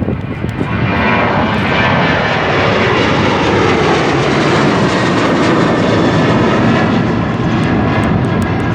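Jet airliner's engines at go-around thrust as the plane climbs past. The roar builds over about the first second and then stays loud and steady, with a faint whine that falls in pitch.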